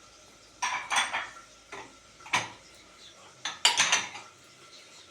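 Steel utensils and dishes clinking and clattering as they are handled, in three bouts: a short flurry about half a second to a second in, a single knock a little after two seconds, and another flurry around four seconds.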